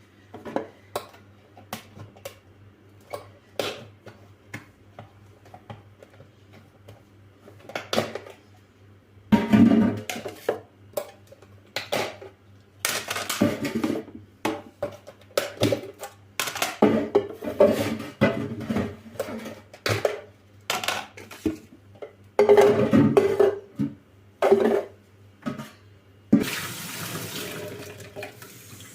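Dishes and kitchen containers clinking and knocking at a sink, with a tap running in a steady rush for the last few seconds.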